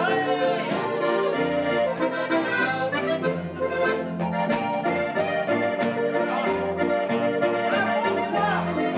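Accordion playing a lively folk dance tune, its chords changing quickly and steadily.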